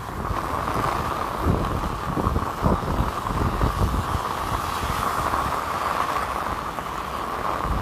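Heavy rain falling on an umbrella and on wet pavement, a steady hiss, with irregular low thumps mixed in.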